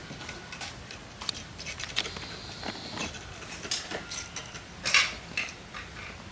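Light scratching, rustling and irregular small taps of cats moving and scrabbling about, with the loudest rustle a little before five seconds in.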